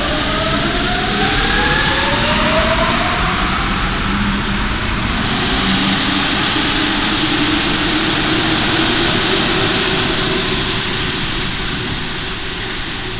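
RATP MP14 rubber-tyred metro train pulling out of the station. Its electric whine rises in pitch as it accelerates over the first couple of seconds, then gives way to a steady rushing noise as the cars pass, easing off near the end.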